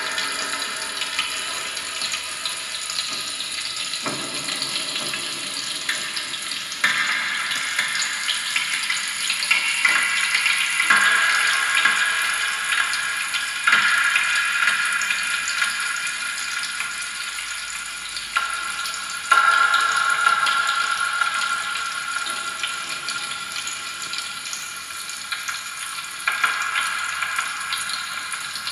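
Amplified popping candy and modified kitchen utensils in a live electroacoustic set: a dense crackling, fizzing hiss with faint high held tones. The texture changes abruptly every few seconds as layers come in and drop out.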